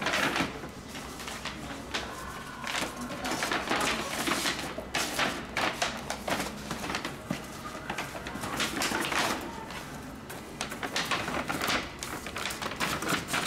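Kraft paper shopping bag rustling and crinkling as boxed cakes are slid down into it and the bag is handled, in a run of irregular scrapes and rustles.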